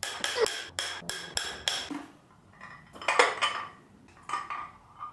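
A quick run of sharp metallic taps and clinks with a bright ring, about four a second for the first two seconds, then a few scattered quieter clinks: tools and parts striking the 2JZ-GTE's iron block during piston and connecting-rod removal.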